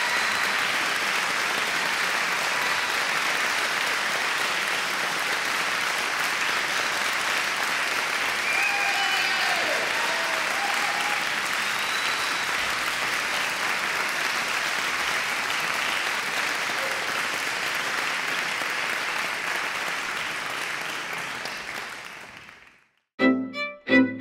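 Audience applauding steadily, with a few voices calling out about nine seconds in. The clapping fades out near the end, and string music with distinct notes begins just before the end.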